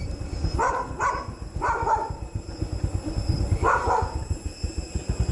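A dog barking, four short barks spread over a few seconds, over a low rumble.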